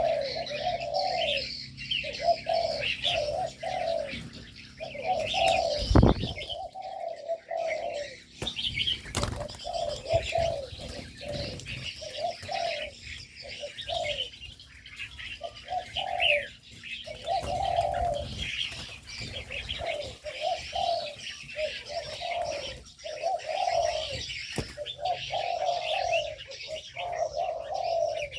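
Doves cooing over and over, phrases overlapping, with many small birds chirping and twittering higher above them. A single thump about six seconds in.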